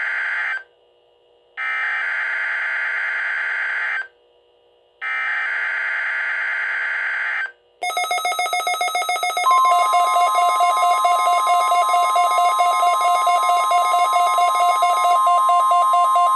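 NOAA Weather Radio test alert: the end of one burst of screechy digital header data, then two more bursts about a second apart. At about eight seconds a pulsing electronic alarm starts, and a second and a half later the steady warning alarm tone joins it.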